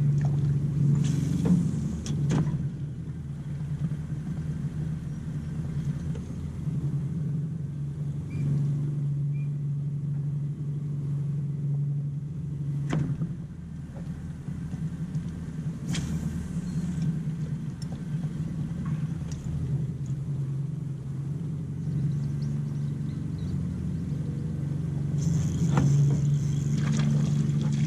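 A boat motor running steadily, a low even hum, with a few sharp clicks and knocks here and there.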